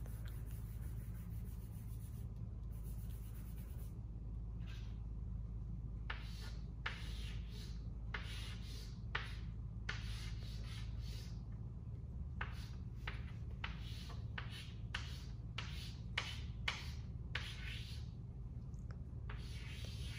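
Chalk on a chalkboard: letters rubbed off by hand, then new ones written in a series of short scratchy strokes from about six seconds in, over a steady low hum.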